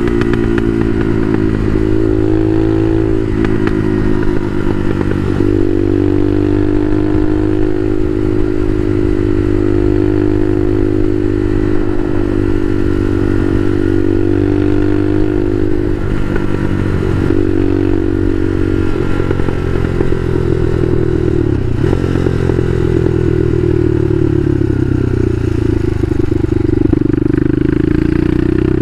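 Bashan Motomax 250 supermoto engine running under way, its pitch rising and falling with the throttle, with several brief dips and a slow sag in pitch before it climbs again near the end.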